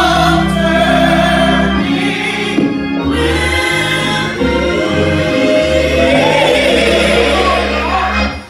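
Gospel choir singing a hymn together in sustained chords, with a lead voice on top and instrumental backing carrying a deep bass line. The sound drops away briefly at the very end.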